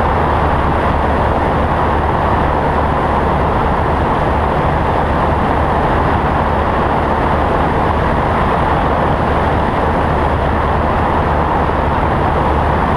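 Cessna 172's piston engine and propeller droning steadily in flight, mixed with rushing airflow on the outside-mounted camera.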